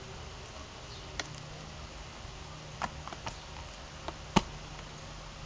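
Lego plastic pieces clicking and knocking as they are handled, a few light clicks then one sharp, loud knock about four seconds in, over a steady low hum.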